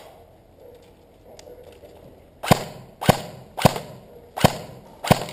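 Airsoft rifle fired in single shots: five sharp cracks, the first about two and a half seconds in, then roughly one every two-thirds of a second.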